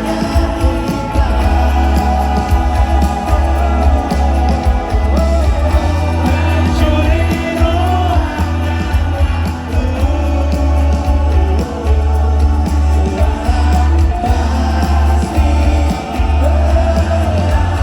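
Live pop-rock band playing with a singing voice over it, heard from the audience of a concert, with a heavy, booming bass.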